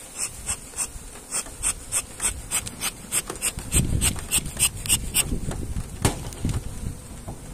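Agitated honeybees buzzing around an opened hive, with a quick, even run of sharp ticks, about three a second, for several seconds. A single knock comes near the end.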